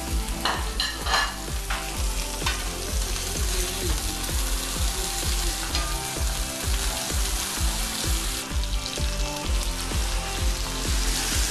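Steak frying in butter in a hot pan, sizzling steadily, with a few sharp clicks from a utensil in the first couple of seconds.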